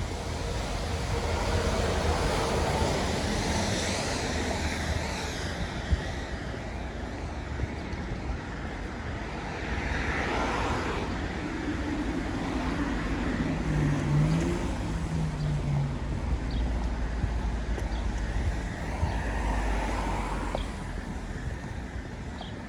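City street traffic on wet asphalt: cars passing one after another, their engine and tyre noise swelling and fading.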